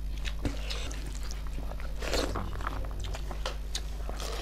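Close-miked eating sounds of snail curry: chewing with scattered small clicks and smacks, and a short slurp-like noise about two seconds in. A steady low hum runs underneath.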